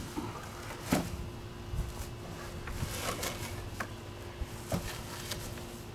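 Wooden Adirondack chair made of 2x4 lumber being grabbed, lifted and carried: scattered light knocks and bumps of the wood, the strongest about a second in.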